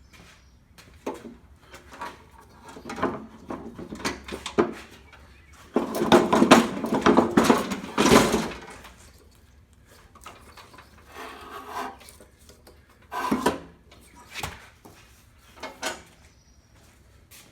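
Knocking, clattering and scraping of hand tools and a block of wood against a small lawnmower engine during flywheel removal. A dense stretch of scraping and clatter comes in the middle, and a few separate sharp knocks come near the end.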